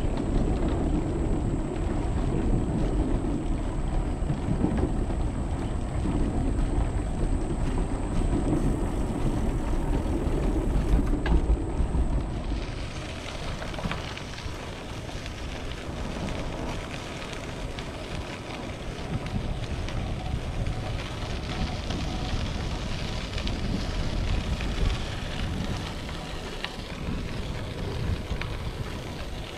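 Bicycle tyres on a Trek Domane AL rolling over the planks of a wooden boardwalk with a heavy, steady rumble. About twelve seconds in they run onto gravel and the sound turns to a lighter, gritty crunching hiss.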